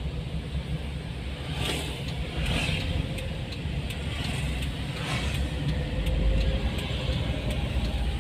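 Steady low road and engine rumble heard inside a moving car, with the hiss of passing traffic swelling up briefly a few times.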